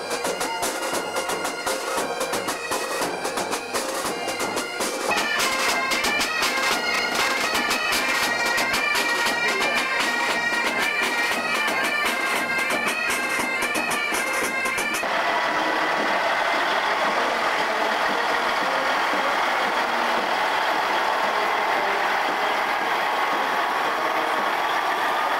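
Marching band playing a march: brass and wind instruments over a steady drum beat. About fifteen seconds in the music cuts off abruptly and gives way to a steady droning noise with a few held tones.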